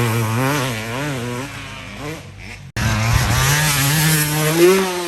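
Dirt bike engine revving up and down under throttle. The sound cuts off abruptly a little past halfway, then an engine note comes back, rising in pitch and falling away near the end.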